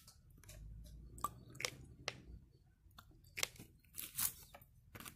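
Plastic slime-kit cups and packets being handled: scattered short crinkles and clicks, a few seconds apart, with a soft low rumble in the first couple of seconds.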